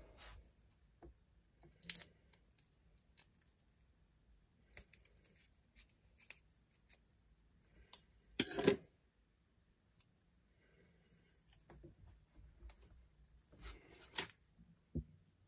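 Faint, scattered small clicks and taps of hands handling small objects, the loudest a short clatter a little past halfway. Near the end there is another, as a hand takes hold of the metal lens adapter.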